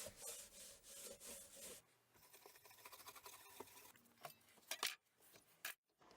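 Faint rubbing of a cloth over wood, wiping chain oil into the wooden toolbox, for about the first two seconds, followed by near silence with a few soft knocks.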